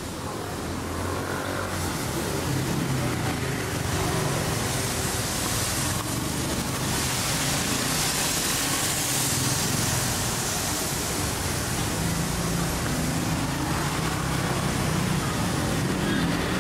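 Road traffic going by steadily: a continuous hiss of tyres with engine hum underneath, a little louder from about two seconds in.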